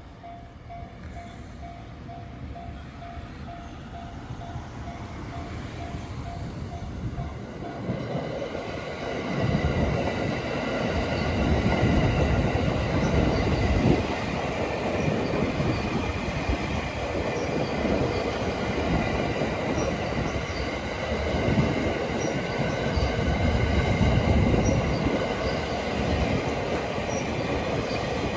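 Takasaki Line electric train passing slowly on a post-typhoon track-inspection test run: its rumble grows from about eight seconds in, with rhythmic wheel clacks and a steady high whine. A steady pulsing tone sounds before the train arrives.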